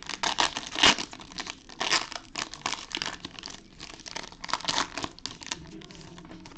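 Trading-card pack wrapper crinkling and crackling as it is torn open and the cards pulled out, in irregular bursts of crackle that die down near the end.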